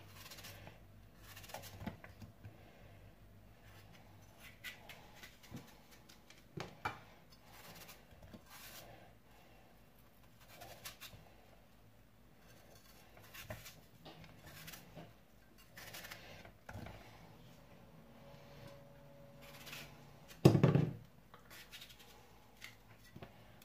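A kitchen knife cutting an apple by hand: soft slicing cuts and scattered small taps as the pieces drop into the blender jar. A single short, louder knock comes about twenty seconds in.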